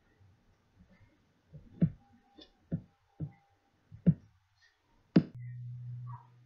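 About six sharp metallic clicks and knocks as a screwdriver hand-tightens the screws holding the stator plate to a Honda horizontal engine's aluminium crankcase. Right after the last and loudest knock, a steady low hum starts and keeps going.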